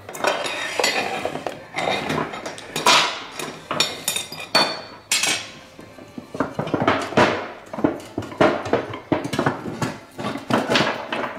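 Repeated metallic clinks and knocks, each with a short ring, as aluminium Yamaha RD250 crankcase sections are handled and set against each other on a steel checker-plate bench.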